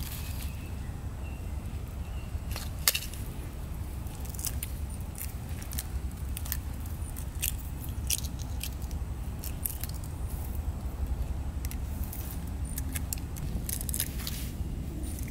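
Shells of boiled balut (fertilized eggs) being cracked and picked off by hand, giving irregular small crackles and clicks, over a steady low rumble.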